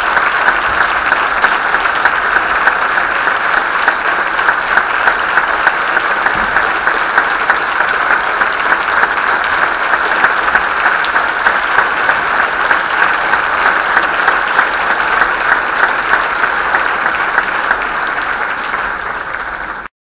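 Theatre audience applauding, a dense steady clapping of many hands, which eases slightly and then cuts off abruptly near the end.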